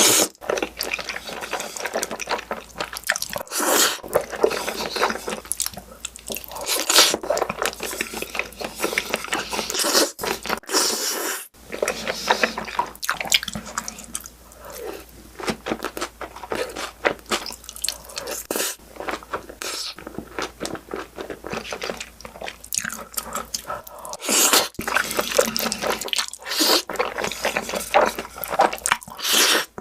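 Close-miked eating sounds: someone chewing and crunching food, with dense, irregular crackling clicks and smacks.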